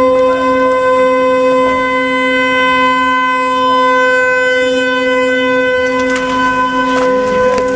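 A car horn sounding one loud, unbroken note at a steady pitch.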